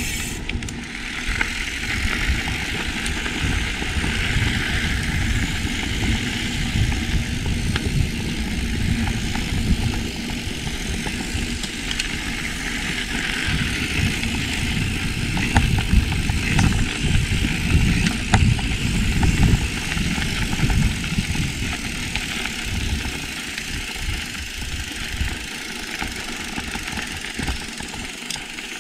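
Wind buffeting the microphone of a camera riding along on a mountain bike, with tyre hiss from the dirt trail and a few sharp clicks and rattles, loudest in the middle and easing off near the end.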